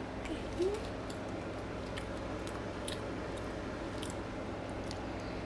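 A child chewing food, with faint scattered clicks over a steady low room hum, and a short rising voice sound about half a second in.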